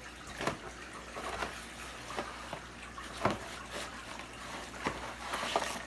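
A cardboard kit box being opened and tipped over by hand: irregular scrapes, rustles and light taps.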